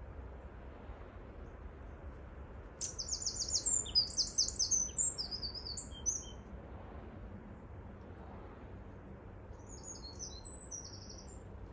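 A small songbird singing: a run of quick, high trilled phrases starting about three seconds in and lasting some three seconds, then a shorter phrase near the end, over a low steady rumble.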